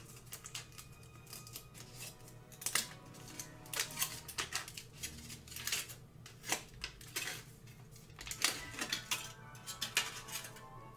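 Foil candy wrapper crinkling in irregular crackles as it is peeled back off a chocolate elf figure, over light background music.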